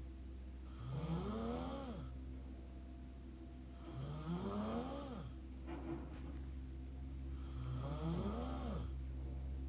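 Mouth snoring: three snores about three and a half seconds apart, each rising then falling in pitch, over a steady low hum.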